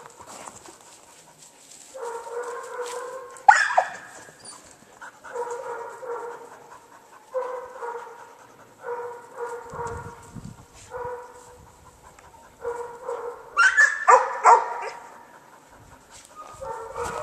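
A dog whining in drawn-out cries about a second long, repeated every second or two, with two louder, sharper yelps about three and a half seconds in and again near fourteen seconds.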